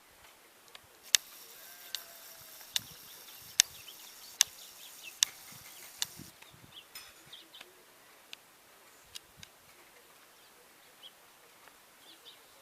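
Sharp clicks, about one every 0.8 seconds over a high hiss, for the first half. Then faint short chirps from small seedeater birds.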